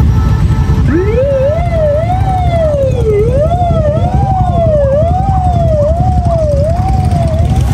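Police car siren winding up about a second in, then wailing up and down a little more than once a second, over the low rumble of motorcycle engines.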